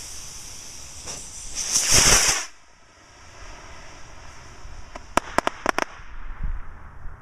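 Model rocket motors ignited together: a high hiss that builds to a loud rush as the rockets lift off, then cuts off abruptly. A few seconds later comes a quick run of five or six sharp pops.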